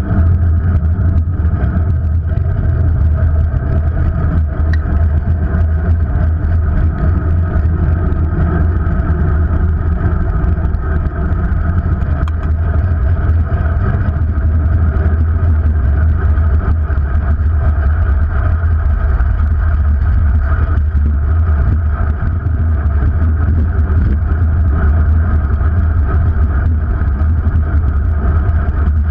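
Steady wind rumble and road noise on a moving, low-mounted action camera travelling along a street, with no sudden events.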